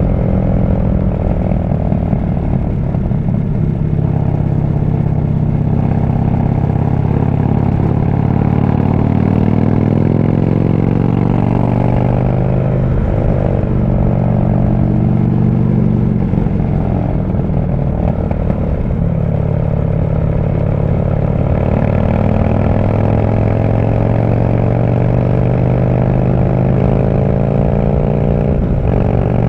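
Harley-Davidson V-twin motorcycle engine running under way, heard from the rider's seat. Its pitch rises and falls with the throttle, dropping briefly a little before the middle and then picking up again, with a slow climb near the end.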